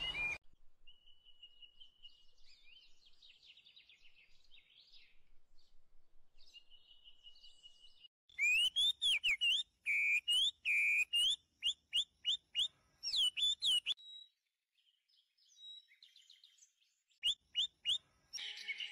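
Birds chirping: faint thin trills at first, then a run of loud, quick whistled chirps that sweep up and down, from about eight seconds in to about fourteen, and a few short chirps again near the end.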